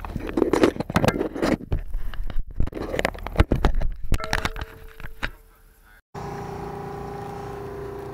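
Handling noise from a small action camera knocking and rubbing against a truck's steering wheel: a run of uneven clicks, bumps and scrapes. About six seconds in it cuts abruptly to a steady machine hum with a few held tones.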